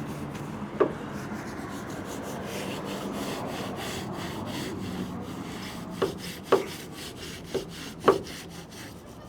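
Rubbing and scrubbing strokes as a boat's hull and roof are cleaned by hand, with a few short knocks about a second in and several more near the end.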